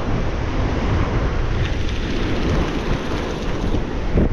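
Wind buffeting the microphone over surf breaking on a rocky shore, a steady heavy rumble.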